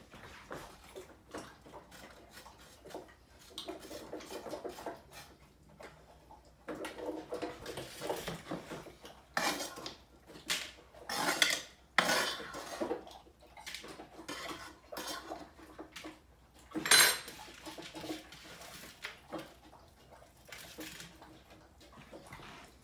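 Siberian husky eating from a stainless steel bowl set in a raised feeder stand: the metal bowl clinks and clatters irregularly as he noses and pushes at it. One sharp clank stands out about three quarters of the way through.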